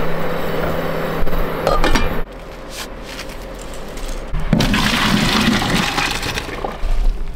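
Cookware knocks on an induction hob, then hot water rushes from a pan through a colander into a sink about halfway through as boiled spaghetti is drained.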